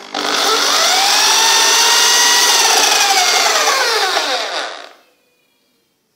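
Electric drill, mounted in a homemade sharpening rig, switched on: its motor whine rises quickly to speed, runs steadily for about four seconds, then falls away as it winds down and stops.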